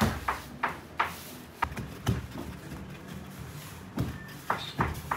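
Sharp, irregular knocks and thumps of bread dough being slapped and pressed down on a work table: a quick run in the first two seconds or so, a pause, then a few more near the end.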